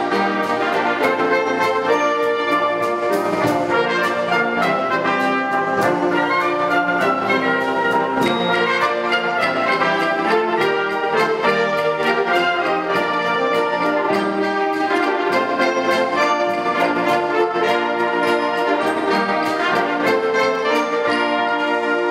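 Concert wind band playing: brass leading over saxophones and clarinets in sustained chords and moving lines, with a steady beat.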